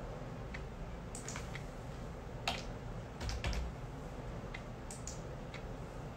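Scattered, irregular clicks of typing on a computer keyboard, a dozen or so keystrokes with pauses between them. There is a louder click about two and a half seconds in and a soft low thump about a second later.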